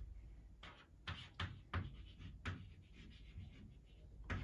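About half a dozen short scratching strokes of a pen or marker drawing on a board, spaced irregularly, over a faint low steady hum.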